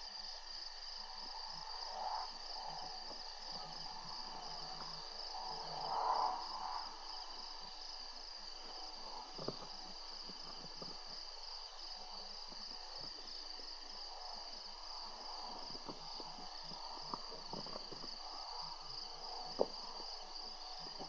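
Crickets trilling steadily at a high pitch in a night insect chorus. There is a short, louder, softer-pitched sound about two seconds in and again about six seconds in, and a few sharp clicks, the sharpest near the end.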